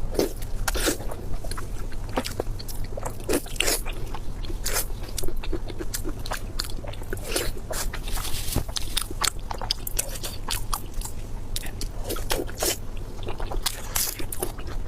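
Close-miked eating sounds: a person biting and chewing food with wet smacking and crunching, as a run of irregular short clicks and squelches.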